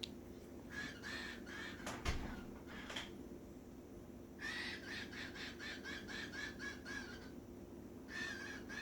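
Cockatiel making a rapid, even series of short repeated chirps, about four a second, in three runs: a brief one about a second in, a longer one midway, and another near the end.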